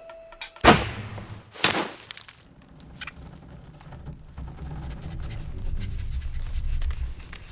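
Two loud, sharp impacts about a second apart, followed by a low rumbling that slowly grows louder.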